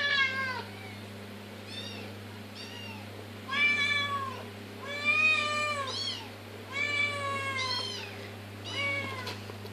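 Domestic cats meowing over and over, begging for food: a run of meows, roughly one a second, some short and some drawn out, each rising and then falling in pitch.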